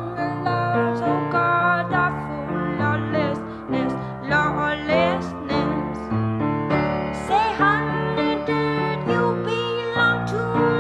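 Background music: a song with piano and a singing voice over a steady bass line.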